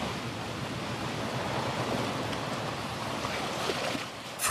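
Steady rush of ocean waves, with wind.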